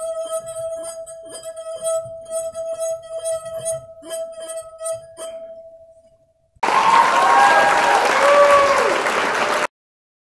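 Wine glass holding some water sung by a wet finger rubbing its rim: a steady, pure ringing tone just above 600 Hz with faint squeaky rubbing ticks. It stops about five seconds in and the ring fades out over about a second. After that a short closing jingle plays, a loud whoosh with sliding chime-like tones, and it cuts off suddenly.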